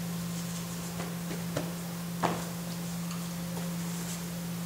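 A few light taps and clicks on a hard floor over a steady low hum, the sharpest tap about two seconds in.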